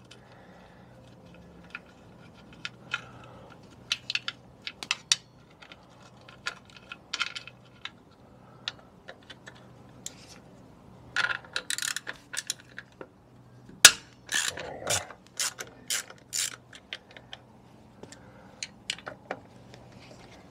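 Hand ratchet driver clicking in short irregular runs as bolts are undone from a 50cc scooter's belt cover, with one sharper, louder click about two-thirds of the way through.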